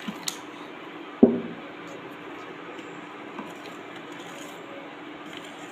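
A single sharp metallic clink against a steel cooking pan about a second in, over a steady faint hum.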